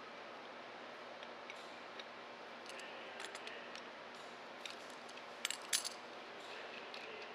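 Small metallic clinks of a wrench and steel studs against the metal hub plate of a street-sweeper pickup broom as the studs are installed, over a steady faint hiss. A few light clicks come about three seconds in, and the loudest pair of clinks comes about five and a half seconds in.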